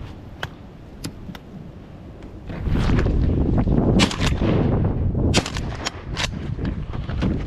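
Shotgun shots, about three, starting about four seconds in and roughly a second apart, over heavy wind buffeting the microphone.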